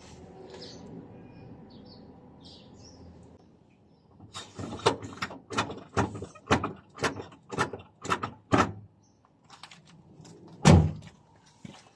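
Socket ratchet clicking steadily, about two to three clicks a second, as the brake caliper guide pin bolts are run in and tightened, then one loud knock near the end.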